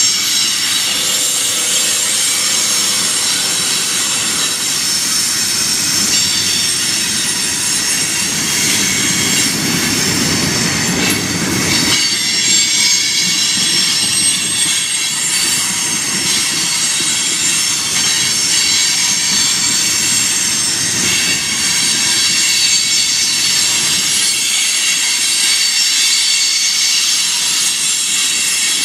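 Freight train of loaded tank cars rolling slowly past with its brakes applied, the wheels and brake shoes squealing in many steady high tones over a low rumble of wheels on rail. To the railfan it sounds as though the brakes are set on every car.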